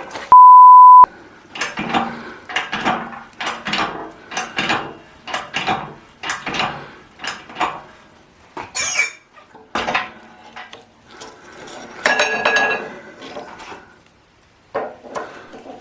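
A loud steady electronic beep lasting under a second, then irregular metallic clinks and clanks of steel round-bar stock and tools being handled, one ringing clank about twelve seconds in.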